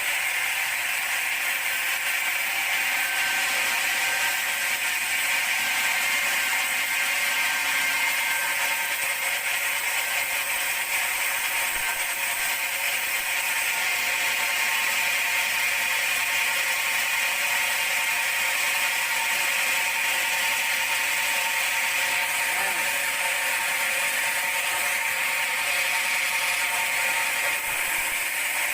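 Large band sawmill cutting through a teak log, a steady high-pitched mechanical whine with several held tones that runs without a break.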